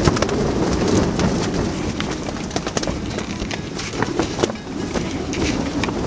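Strong wind buffeting a polar pyramid tent: a steady rumble with irregular snaps and rattles of the canvas.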